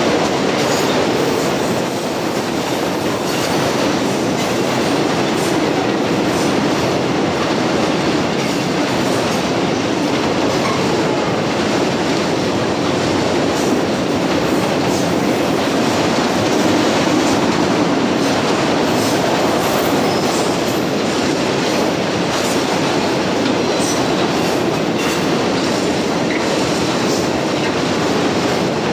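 Freight train of autorack cars rolling past at close range: a steady rumble of steel wheels on rail.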